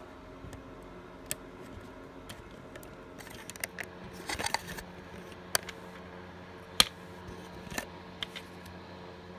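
Plastic CD jewel case being handled and opened: a string of sharp clicks and rattles, the loudest about seven seconds in, with a brief crackly scrape around four and a half seconds in. A faint steady hum runs underneath.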